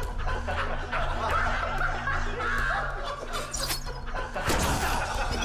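A group of men snickering and laughing over low, droning background music, with a few sharp swishing hits in the last two seconds.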